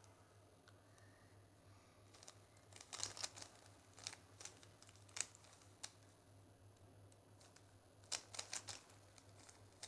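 Plastic 3x3 Rubik's cube being turned by hand: faint clattering clicks of the layers rotating, in quick clusters about three seconds in and again near the end.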